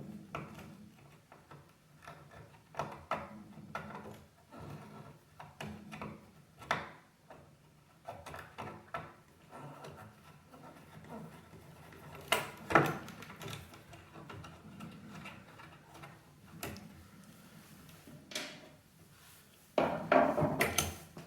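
Scattered small clicks, scrapes and knocks of a screwdriver working loose the screws that hold a lock in a wooden china cabinet. A sharper knock comes about two-thirds of the way through, and a louder cluster of handling noise comes near the end.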